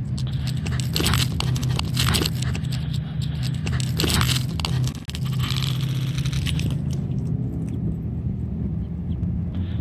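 Loud close-up scraping and crunching as a corgi mouths and carries a mini soccer ball right at the microphone, in a few strokes over the first half, over a steady low rumble.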